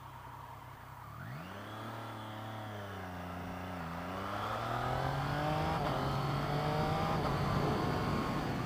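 Triumph Street Triple RX's 675 cc three-cylinder engine pulling away: the revs climb sharply about a second in, dip briefly, then rise again and settle into a steady, louder run.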